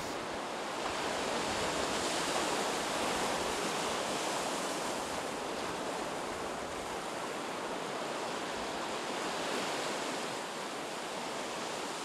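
Sea surf washing on a beach: a steady rushing of waves that swells a little now and then.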